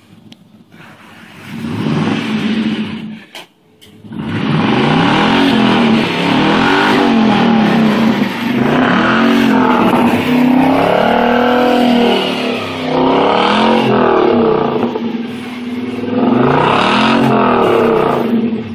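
1993 Infiniti Q45's V8 through its modified exhaust, revved hard to spin the wheels while stuck in snow. A short rev comes early, then after a brief drop a long loud run in which the revs rise and fall over and over.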